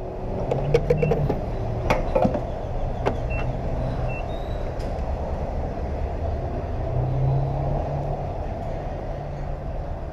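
Motorcycle engine running steadily while under way, with road and wind noise.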